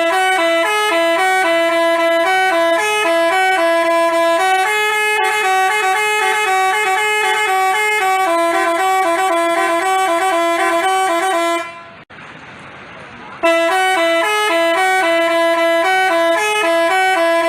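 Telolet basuri musical bus horn playing a quick melody of bright, clear notes. It stops about twelve seconds in and starts again about a second and a half later.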